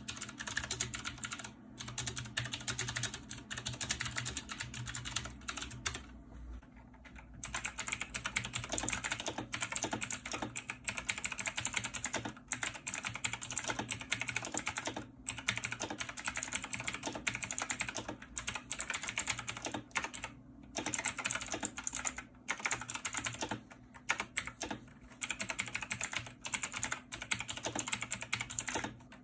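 Continuous fast typing on a clicky mechanical gaming keyboard: a dense run of sharp switch clicks and key strikes, broken by brief pauses, the longest about six seconds in.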